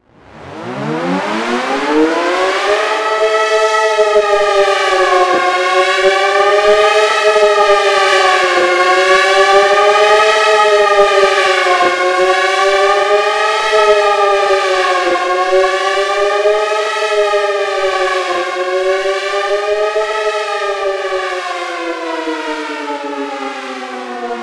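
Synthesized Federal Signal 2001 dual-tone civil defense siren. It winds up from silence over about two seconds, holds a steady chord with a slow waver about every three seconds, and starts winding down in pitch near the end.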